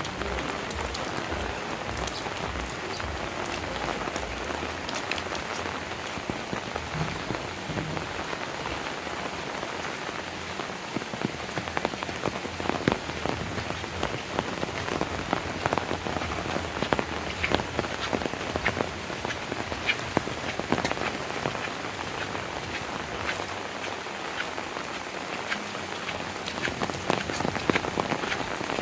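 Steady rain falling, an even hiss with many close, sharp drop impacts that come thicker after about ten seconds.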